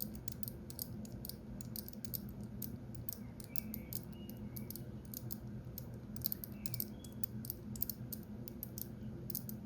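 Irregular small clicks of a numbered combination padlock's number wheels being turned one at a time, while the shackle is held under tension to feel for the correct digit, over a steady low hum.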